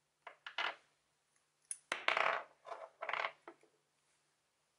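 Metal parts of a bearing press (threaded rod and aluminium drifts) and a freehub body clinking and knocking as they are handled and set down on a workbench: a series of short clinks, the loudest and longest about two seconds in.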